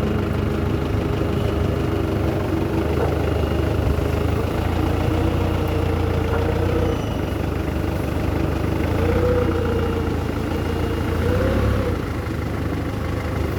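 A vehicle engine running at idle with a steady low hum, a higher tone wavering up and down about three times.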